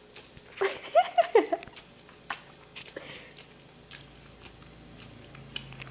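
A small dog licking and smacking at peanut butter stuck in her mouth, with scattered wet clicks and smacks. About a second in, a brief run of short, high-pitched vocal sounds is the loudest thing heard.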